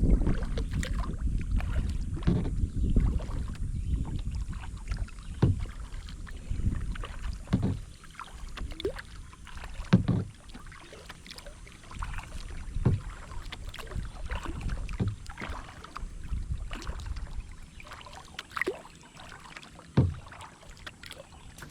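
Kayak being paddled: paddle strokes in the water with short knocks every second or two, over a low rumble that is heavier in the first half.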